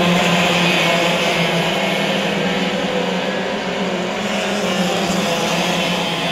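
Two-stroke racing kart engines running on track, several at once: one steady drone holds its pitch while fainter engines rise and fall in pitch around it.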